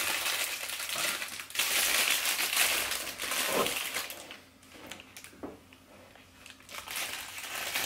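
Clear plastic cellophane bag crinkling and rustling as hands open it and pull out a chocolate truffle, busiest for the first four seconds, then dying down to a few faint crackles.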